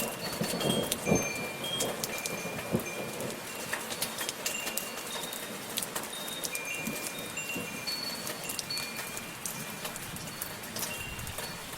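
Steady patter of light rain with metal wind chimes ringing scattered, overlapping high tones throughout. A few heavier drops land with louder splashes about a second in.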